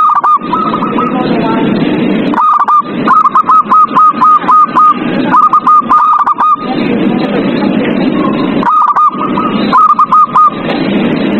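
Zebra dove cooing: quick runs of short, hooked notes, several a second, in about six bursts. A steady noisy background fills the gaps between the bursts.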